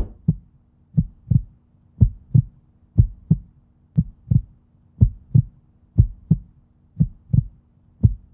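Heartbeat sound effect: a steady lub-dub, pairs of low thumps about once a second, over a faint low hum.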